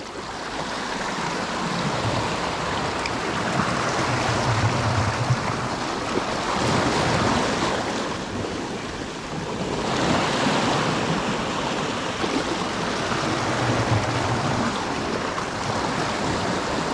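Sea waves breaking and washing onto the shore in slow surges, easing off briefly about eight seconds in before building again.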